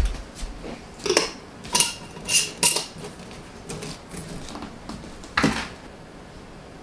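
Glass mason jars being picked up and set down on a countertop, with a metal spoon clinking: about six separate clinks and knocks, some ringing briefly, the last near five and a half seconds in.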